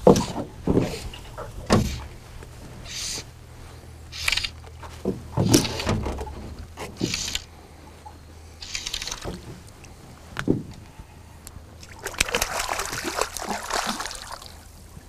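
Sharp knocks and bumps in a fishing boat with water splashing and sloshing, and a longer splashing rush about twelve seconds in, as a hooked fish is brought in beside the boat.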